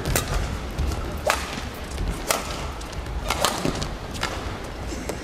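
Badminton rally: rackets strike the shuttlecock about five times, roughly once a second, as the players trade shots, over the steady hum of an arena.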